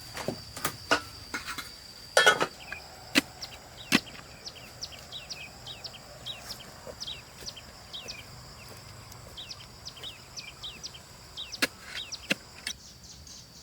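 A steady high insect trill, with a run of short falling chirps about two a second through the middle. Several sharp knocks in the first few seconds and a few more near the end are the loudest sounds.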